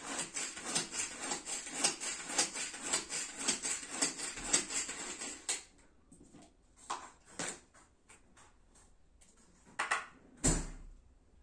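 Knife cutting quickly through a vegetable held in the hand, rapid crisp cuts several times a second, stopping about five and a half seconds in. A few scattered clicks follow, and there is a short thud near the end.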